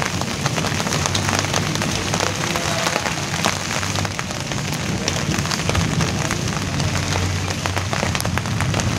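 Steady rain falling on broad leaves: an even hiss dotted with many separate drop ticks.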